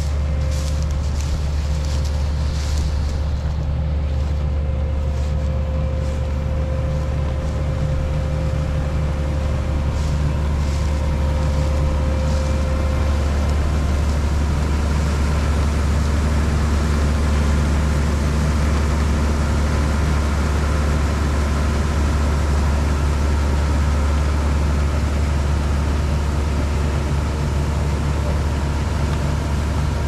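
Claas Mega Dominator 204 combine harvester running steadily under load while threshing and unloading grain, a deep constant drone. A thin steady whine over it fades out about halfway.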